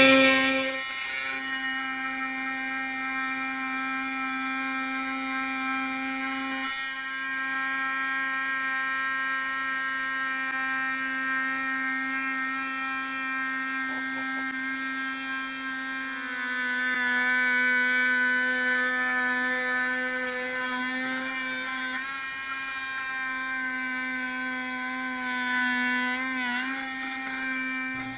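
Dremel oscillating multi-tool with a half-moon blade buzzing steadily as it cuts through a plexiglass aircraft canopy. Its pitch dips slightly about halfway through and wavers near the end as the blade works through the cut.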